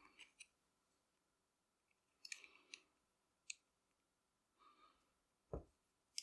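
Faint, scattered small metal clicks as a tool works at the retaining clip on the padlock's core, with one soft knock about five and a half seconds in.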